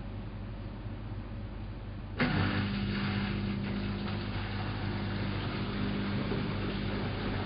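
Elin WM26AAA washing machine (built by Antonio Merloni): over a low hum, a motor or pump switches on abruptly about two seconds in and keeps running with a steady hum over a hiss.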